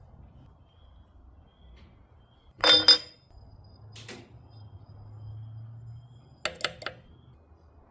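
Metal clinking as chainsaw parts and tools are handled during clutch drum cleaning: one loud ringing clink about two and a half seconds in, a fainter one a second later, and three quick clicks near the end.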